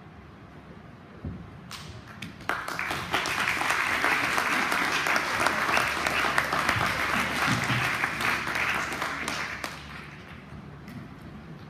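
Theatre audience applauding. The clapping breaks out about two and a half seconds in, holds steady for several seconds, and dies away near the end.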